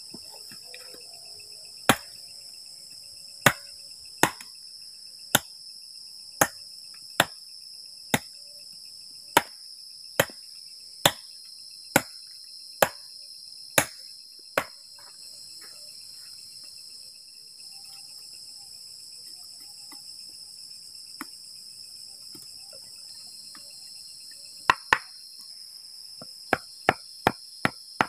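A machete chopping at a wooden plank in about fourteen sharp strikes roughly a second apart, then a block of wood pounding a wooden stake into the ground in quicker blows near the end. Crickets and other insects trill steadily throughout.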